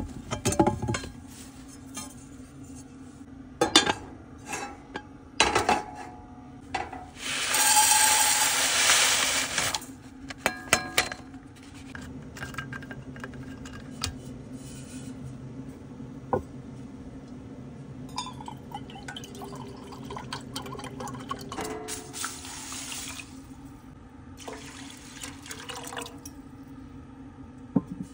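Cookware and bottles being handled with scattered knocks and clinks, and a few seconds of water being poured into a saucepan about a quarter of the way in.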